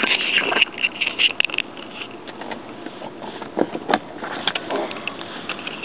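Handling noise from a hand working the van's rear-seat plastic console: rustling and light scrapes with scattered small clicks, and one sharp plastic click about four seconds in.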